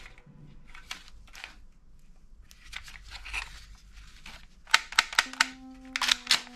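Plastic toy pistol handled in gloved hands among other plastic toy guns in a plastic bin: rustling and light knocks, then a quick run of sharp plastic clicks near the end. A steady low tone sets in under the clicks about two-thirds of the way through.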